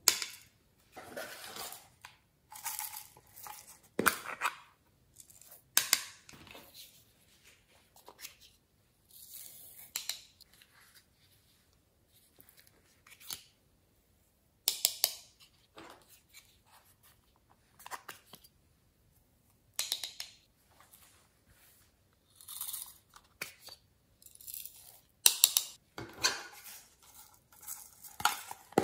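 Glitter shaken out of small plastic shaker containers onto slime: irregular bursts of rattling and sprinkling, with sharp clicks of the plastic containers, separated by short quiet gaps.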